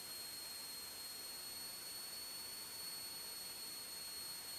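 Faint steady hiss with a thin, steady high-pitched whine from an aircraft's headset intercom audio line, with no engine or voice on it.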